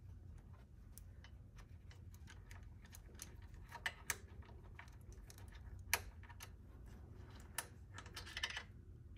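Faint, irregular clicks and small taps from a screwdriver and screws being worked out of a laser engraver's frame and handled, with a few sharper clicks among them.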